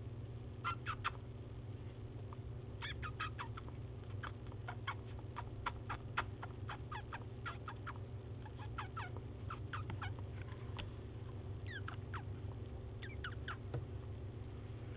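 A small pet mouse jumping about: a scatter of short, high ticks and chirps, several a second, some sliding down in pitch, over a steady low hum.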